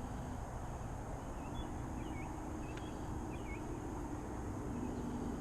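Steady low outdoor rumble with a faint hum, and a few faint bird chirps scattered through the first half.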